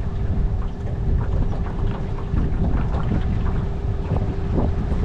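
Wind buffeting the microphone over the steady hum of a boat motor running.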